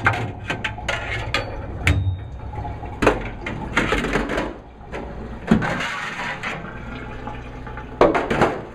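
Metal dishwasher strainer screens clanking and knocking in a sink while water runs and drains, with a low steady hum that fades out about halfway through.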